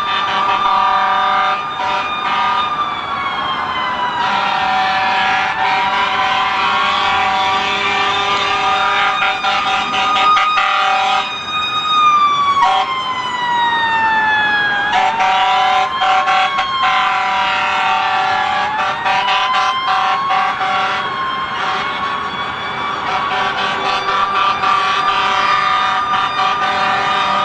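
Several emergency vehicle sirens sounding at once, their pitches sweeping slowly down and back up in overlapping wails over a bed of steady held tones.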